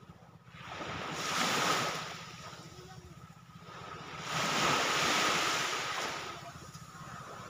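Small sea waves breaking and washing up a beach, two swells of surf about three seconds apart.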